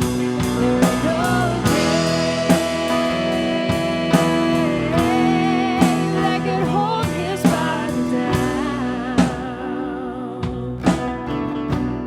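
Church worship band playing a slow song: a singer holds long wavering notes over guitar chords and a steady drum beat.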